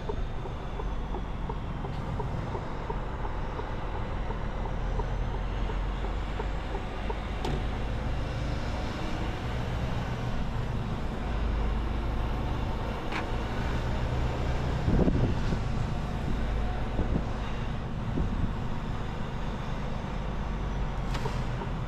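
Mercedes-Benz Actros L 1848 straight-six diesel heard from inside the cab while driving at low speed: steady engine running under road noise. One louder thump comes about fifteen seconds in.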